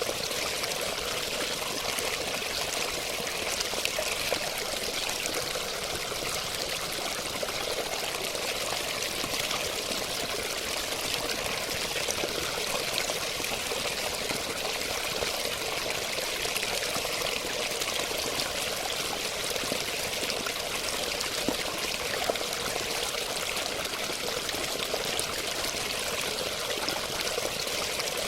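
Running water pouring and splashing steadily, with an even rush and no change in level.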